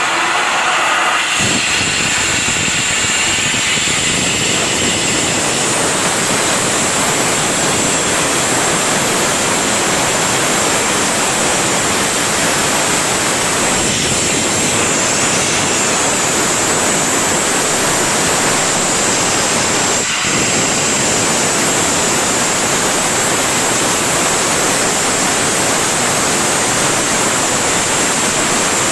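Gas burner flame on a glass-blowing lathe, burning with a loud, steady hiss while it heats a glass tube, with a brief dip about two-thirds of the way through.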